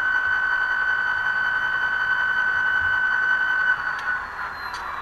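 HO scale SD40-2 model locomotive's onboard sound system playing an EMD diesel idling with a steady high whine, which cuts off near the end as the engine is shut down. Slowly falling tones follow, with two sharp ticks.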